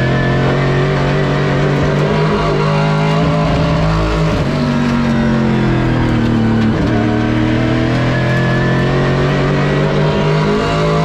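Pro Late Model stock car's V8 engine heard from inside the cockpit, running hard at speed on track. Its note dips briefly and picks up again a couple of times.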